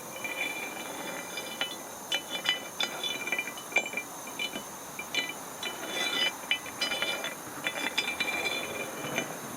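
Steel parts clinking and scraping against each other: many short, irregular metal-on-metal contacts with a bright ringing.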